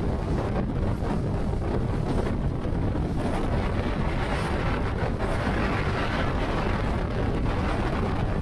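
Heavy wind buffeting the microphone of a camera aboard an aluminum bass boat under way at speed through choppy waves, with the rush of water and spray along the hull. Steady and dense, with no let-up.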